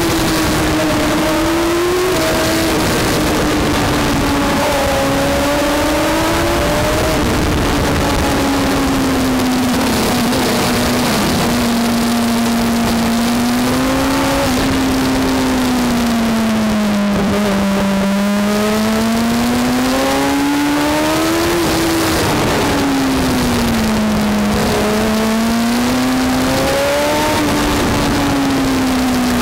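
Sport motorcycle engine heard from onboard at track pace. Its pitch climbs and falls over and over as the rider accelerates out of corners and rolls off into them, over constant wind rush on the microphone.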